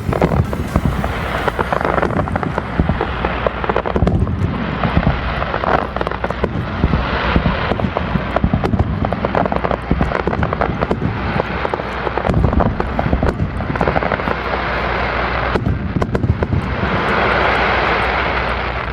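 Fireworks display going off: a dense run of sharp bangs and crackles over a steady low rumble, with a louder rushing wash of noise swelling near the end.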